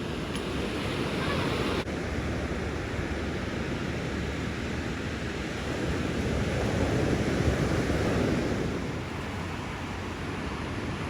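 Ocean surf breaking and washing onto the beach, swelling louder as a wave breaks about two-thirds of the way through, with wind rumbling on the microphone.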